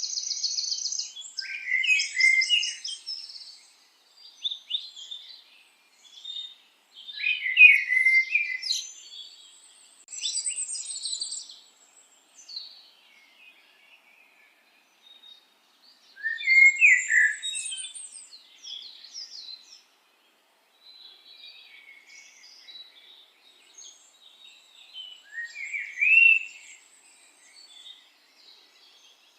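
Small birds singing and chirping in repeated bouts of high, quick trills and warbles, with short pauses between them.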